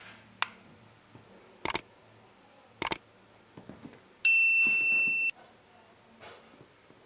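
Subscribe-button sound effects: two sharp clicks about a second apart, then a bright electronic beep held for about a second and cut off suddenly.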